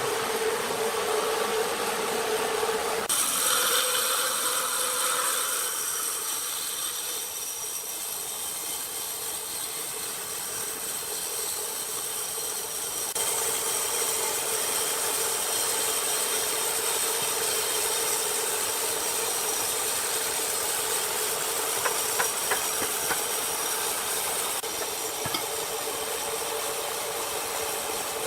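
Sawmill machinery running: a steady mechanical hum and hiss with a high whine, changing in character abruptly a few times.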